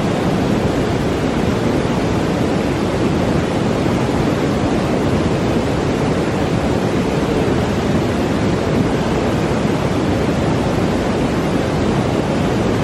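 A steady, even rushing noise that holds the same level throughout, with no breaks or separate events.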